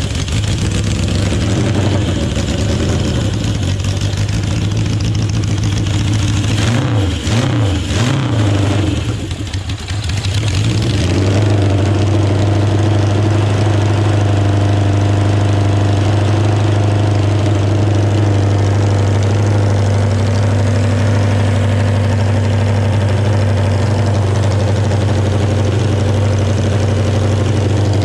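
Air-cooled motorcycle engine in a custom John Deere 317 pulling tractor, exhausting through tall upright stacks. It is revved up and down several times over the first ten seconds, then settles into steady running at about 3,000 rpm.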